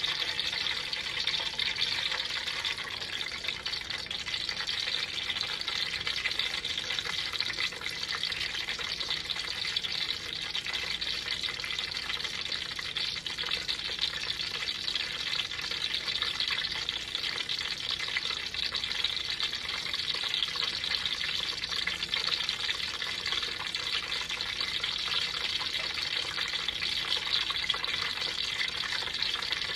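Cooking grease sizzling steadily in a pan on low heat, a slice of lemon frying in it.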